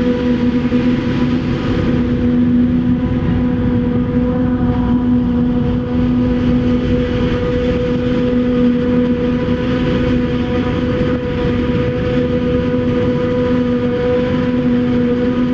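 Maize silage harvesting machinery, a forage harvester working with tractors, running steadily under load. A constant engine drone carries a strong steady hum and fainter higher whines above it, with no break or change.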